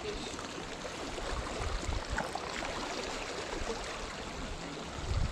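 Small waves lapping and washing around rocks at the water's edge, a steady watery hiss.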